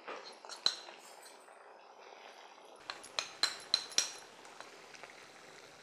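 A spoon clinking and tapping against a plate while chilli powder is spooned into a pan: one sharp clink a little before a second in, then a quick run of about five clinks three to four seconds in.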